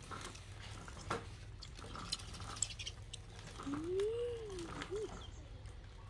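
Faint clicks and rustles of a macaque handling and chewing a corn cob. About four seconds in, a single call rises and falls in pitch, followed by a shorter one.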